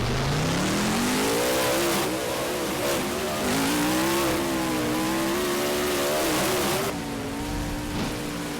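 Monster truck's supercharged V8 engine revving up hard over the first second and a half, held at high revs with the pitch wavering as the throttle works, then easing back to a lower, steadier note about seven seconds in.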